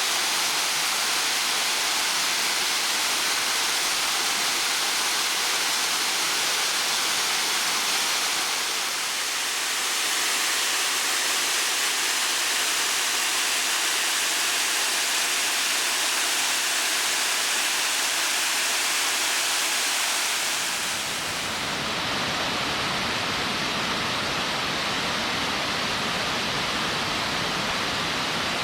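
Steady rush of water spilling over rocks at the Mototaki Fukuryusui cascades, spring water welling out of gaps in the rock. The sound changes slightly about nine seconds in, then turns fuller and deeper about twenty-one seconds in.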